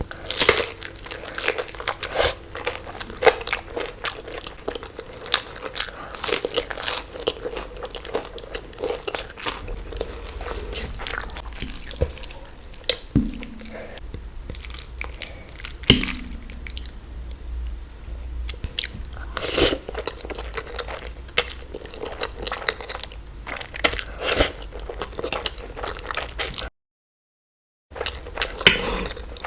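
Close-miked eating: irregular crunchy bites and chewing, with a moist, smacking quality at times. The sound drops out completely for about a second near the end.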